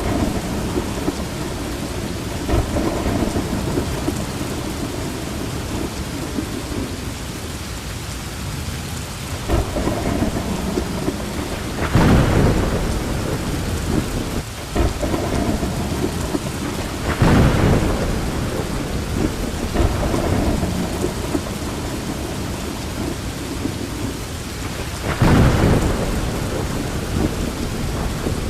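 Steady rain falling, with thunder rumbling in several swells over it, the strongest about twelve seconds in and others near ten, seventeen and twenty-five seconds.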